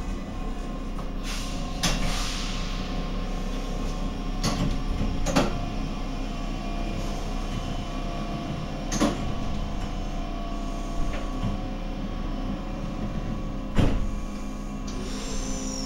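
Stadtbahn light-rail car standing at a platform, its onboard equipment giving a steady hum, with several sharp knocks and clunks, the loudest about 14 s in. Near the end a short high whine falls in pitch.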